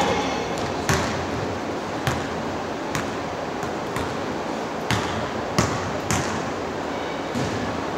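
Basketballs bouncing on a hardwood gym floor: about eight irregular thuds with echo in the large hall. The loudest comes right at the start, as a shot hits the hoop.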